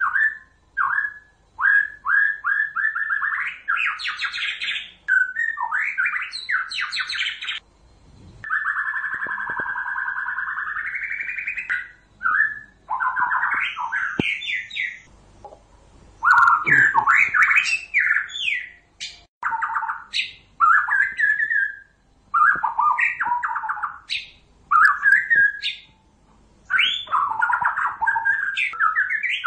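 White-rumped shama singing: a varied run of loud whistled phrases, quick repeated notes and chattering calls, with one longer buzzy note about nine seconds in.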